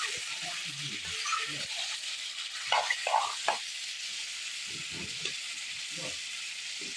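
Pork pieces sizzling in hot oil in an iron kadai, stirred with a metal spatula scraping the pan. A few louder scrapes and knocks come about three seconds in.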